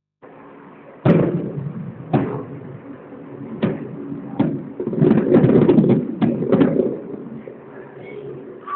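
Fireworks shells bursting: a series of sharp booms with echoing tails, one every second or so at first, then a rapid cluster of bangs and crackling about five seconds in.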